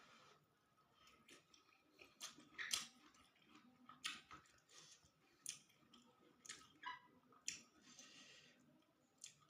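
A person chewing a mouthful of fried rice vermicelli with tofu and water spinach, with short sharp clicks and crunches about once a second.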